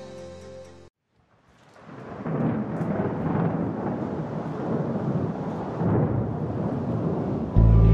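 Rumbling rush of wind and engine noise from a Piper Archer light aircraft in flight, as picked up by a camera mounted outside the plane. It fades in just after a short gap and then holds, swelling twice.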